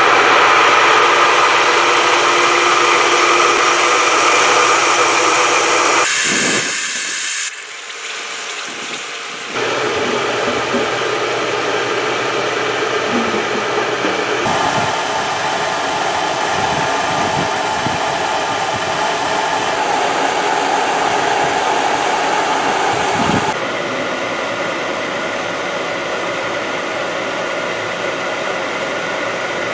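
Steady loud hiss of air escaping from the open air release valve on a Jandy CL580 cartridge filter lid as the pool pump pressurises the filter, with irregular pops in the second half. The level changes abruptly a few times.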